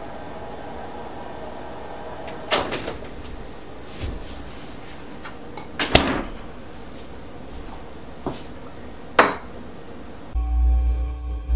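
A handful of sharp kitchen knocks and clicks from a refrigerator door being shut and a drinking glass being handled, over a steady low hum. Deep droning music comes in near the end and is the loudest sound.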